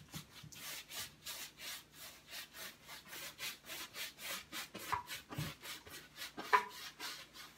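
Large paintbrush scrubbing a thin acrylic wash across a stretched canvas in quick, repeated back-and-forth strokes: a soft, scratchy rubbing.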